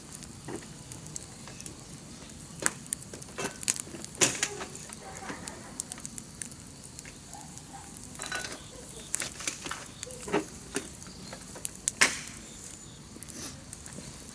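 Wood campfire crackling: irregular sharp pops and snaps over a steady low hiss, with one louder pop about twelve seconds in.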